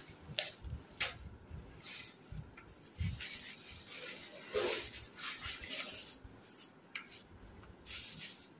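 Leafy greens and a thin plastic bag rustling and crinkling in short, irregular bursts as the leaves are picked over by hand, with a soft thump about three seconds in.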